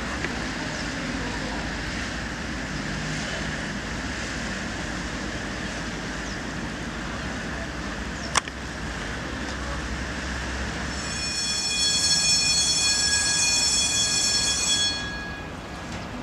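Machinery of a railway lift bridge running with a steady low rumble, a single sharp click about eight seconds in. About eleven seconds in, a loud high-pitched metallic squeal with several overtones sets in, lasts about four seconds and then cuts off.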